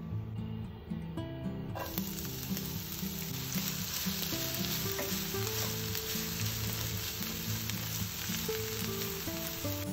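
Food sizzling in hot olive oil in a frying pan, the sizzle starting suddenly about two seconds in, over background music.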